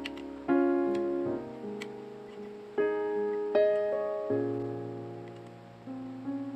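Background piano music: chords struck one after another, each left to fade before the next.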